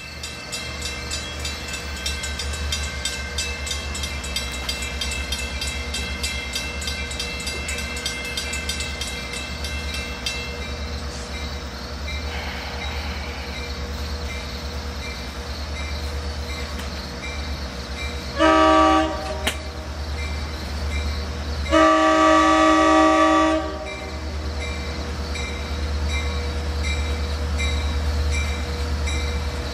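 Diesel locomotive idling with a steady low rumble while a train horn sounds twice, a short blast followed a few seconds later by a longer one. A faint regular ticking runs underneath.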